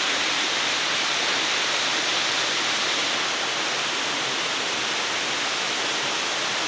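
Steady rush of a waterfall cascading in several streams down a steep rock face.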